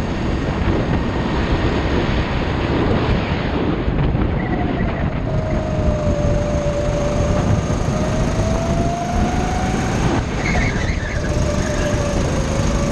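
Go-kart's petrol engine running at speed on the track, with a loud, steady rumble. From about four and a half seconds in, a whine rides over it, dipping and rising in pitch as the kart takes the corners.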